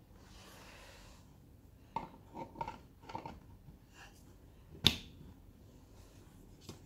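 Light knocks and taps of hard plastic and acrylic as a clear acrylic panel and its black plastic light base are handled. A cluster of small knocks comes about two to three seconds in, then one sharp click near five seconds in, and a faint click near the end.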